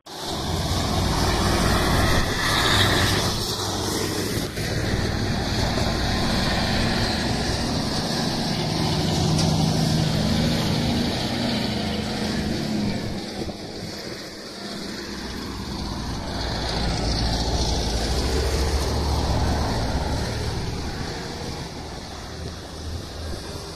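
Heavy container trucks' diesel engines and tyres passing by on a highway, a low drone that swells and fades as each truck goes past, with a brief lull a little past the middle before another swell.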